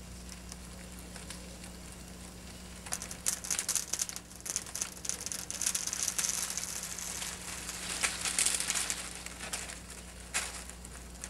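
Bent-over sapling (spring pole) cracking and splintering as its wood fibres tear apart behind a shaved V-notch, the tension releasing as it breaks. A run of crackles starts about three seconds in, is densest midway and dies away near the end.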